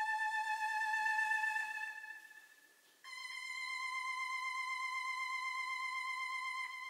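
Buzzy electronic sawtooth-wave tones from the installation's STM32F4 microcontroller oscillator. A wavering tone fades out about two seconds in, and after a short gap a slightly higher tone starts and holds steady.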